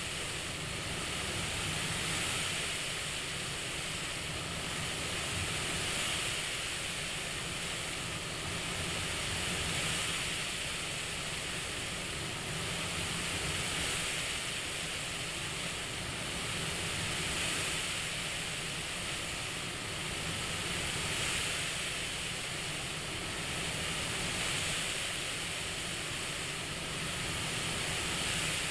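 CPAP machine air hiss, a steady rush of air that swells and eases in slow breathing cycles about every four seconds.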